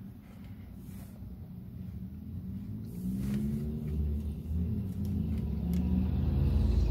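Low engine rumble of a nearby motor vehicle, growing steadily louder from about three seconds in as it approaches, heard from inside a car.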